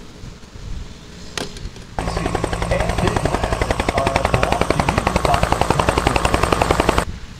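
Bell UH-1 Huey helicopter hovering, its two-bladed main rotor making a loud, rapid, even chop of about ten blade slaps a second. The sound cuts in suddenly about two seconds in and cuts off just before the end.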